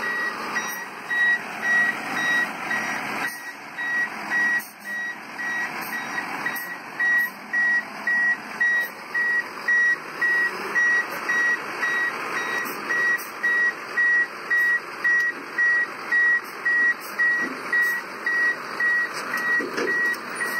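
Truck reversing alarm beeping steadily about once a second, over a heavy truck's engine running as it is manoeuvred on a lowboy trailer.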